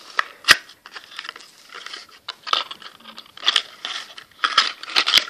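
Plastic candy-stick packet being crinkled and torn open: a run of crackles and sharp clicks, the loudest about half a second in and another cluster near the end.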